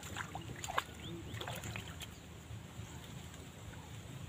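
A hooked fish splashing at the surface of shallow water as it is pulled in on a pole line: a few sharp splashes in the first second, then softer water sounds.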